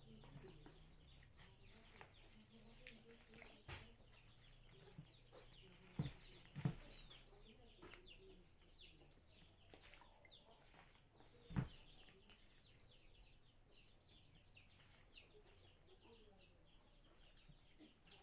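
Faint, quick high chirps repeating throughout, with soft knocks about six seconds in, again just after, and near twelve seconds as hibiscus leaves and flowers are handled in a plastic basket and a steel bowl of water.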